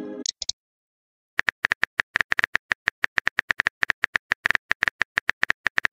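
Rapid, slightly irregular keyboard clicks, about seven a second, each with a short bright ping: the typing sound effect of a texting app while a message is composed. The tail of a message chime sounds briefly at the start.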